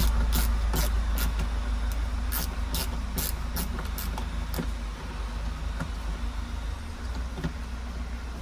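A hand tool clicks sharply, about two to three times a second, while dashboard panel screws are being undone; the clicks thin out after four or five seconds. A low rumble underneath fades away.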